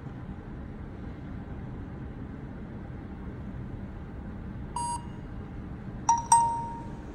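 Phone scanning app beeping: one short beep about five seconds in, then two sharper beeps close together a second later, the last one ringing out. The beeps are the app's alert that the scanned QR code's material could not be found in SAP.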